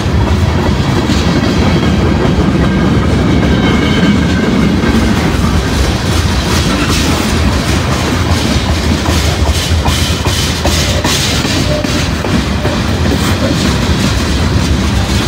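Freight train of tank cars rolling past: a steady rumble of steel wheels on the rails, with wheels clicking over the rail joints.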